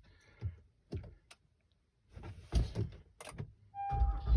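A few short clicks and knocks of handling inside a pickup truck's cab. Near the end a low rumble sets in, and the truck's warning chime starts beeping about once a second.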